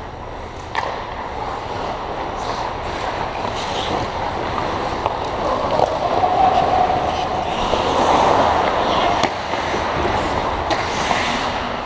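Ice hockey play: skate blades scraping and carving on the ice over a steady rink noise, with a few sharp knocks.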